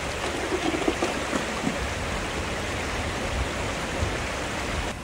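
River water rushing steadily over the riverbed.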